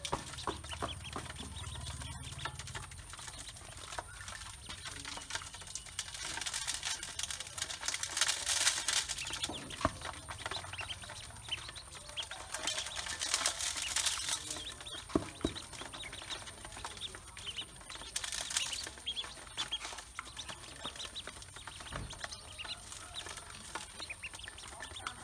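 Ducklings peeping and pecking at feed on the bottom of an aluminium basin, their bills and feet ticking on the metal. Feed grains are scattered into the basin a few times, pattering on the metal in louder hissy stretches.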